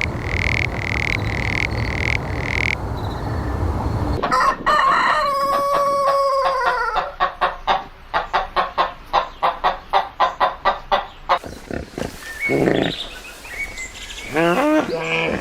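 A rooster crowing: one long call that holds its pitch and then falls, followed by a fast run of clucks, about four a second. Before it comes a low hum with short, evenly repeated chirps, and a few other animal calls come near the end.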